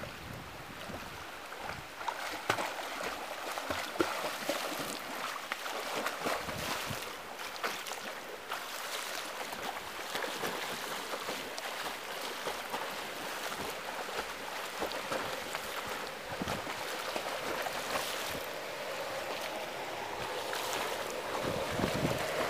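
A swimmer doing front crawl in a pool: arms and kicking feet splashing the water in a steady run of irregular splashes.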